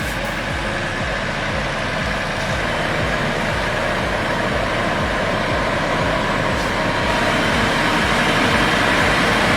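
Heavy truck's diesel engine running with a steady low throb, growing gradually louder.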